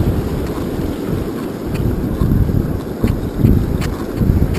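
Wind buffeting the microphone with a loud low rumble, over the wash of breaking surf. A few light clicks come through in the middle.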